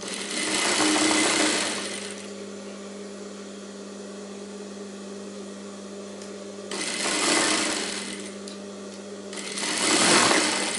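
Industrial sewing machine stitching fabric in three short runs, about a second and a half each: at the start, near seven seconds, and again near the end. Between runs its motor keeps up a steady hum.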